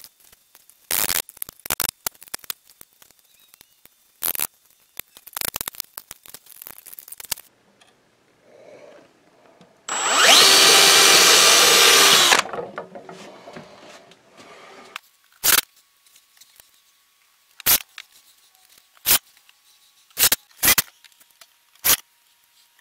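Clicks and knocks as staples and slats are worked off a wooden crate, then a power drill runs for about two seconds, drilling through a crate slat, its pitch rising as it spins up and then holding steady. Spaced sharp knocks follow as the crates are fastened to the wall.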